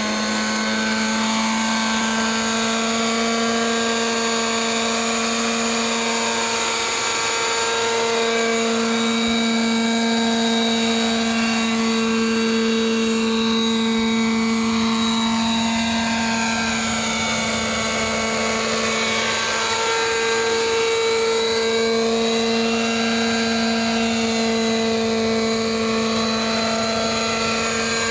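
Align T-Rex 600 radio-controlled helicopter running at a steady head speed as it lifts off and flies about. It gives a loud, even whine of constant pitch, with slow sweeping shifts in tone as it moves.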